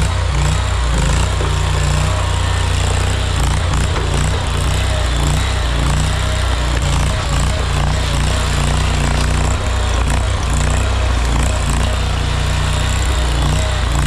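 Small gasoline engine of a tracked mini skid steer running steadily as the machine drives and loads its bucket.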